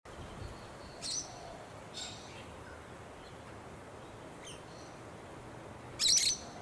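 Short high-pitched bird chirps over a faint steady outdoor hiss: one about a second in, a few weaker ones after, and the loudest burst of chirping near the end.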